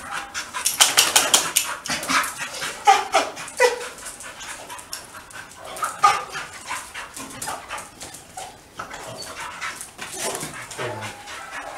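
A dog giving short, high yips and whines as two dogs greet and play. Claws click and scrabble on a hardwood floor, loudest about a second in.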